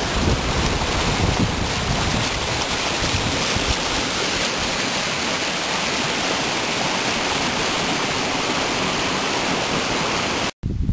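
Whitewater rapids rushing over rocks in a steady, loud, unbroken wash of noise. The sound cuts off abruptly near the end.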